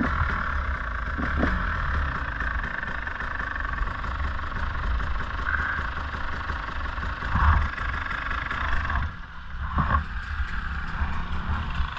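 Dirt bike riding along a road, its motor running steadily, with a brief drop in the sound about nine seconds in.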